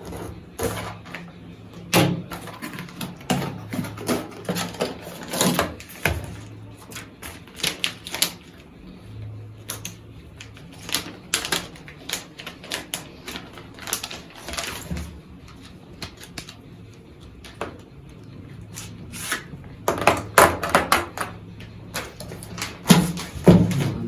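A pack of whiteboard markers being opened and handled: irregular crinkling and tearing of plastic packaging with sharp clicks and taps, in clusters.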